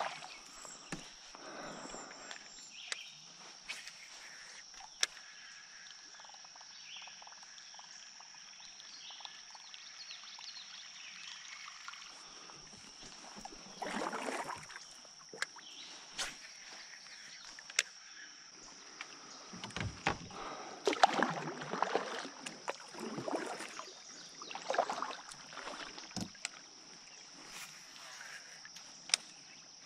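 Kayak paddle strokes swishing through calm river water: one stroke about halfway through, then a run of strokes in the second half, with a few sharp clicks scattered throughout.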